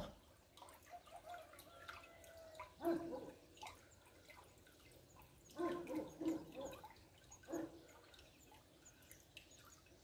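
Small shallow stream trickling over pebbles, faint, with scattered drips and short gurgles. The loudest gurgles come about three seconds in and again around six seconds.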